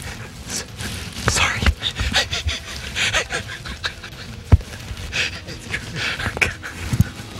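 Two men laughing in repeated breathy bursts, with a sharp thump about four and a half seconds in.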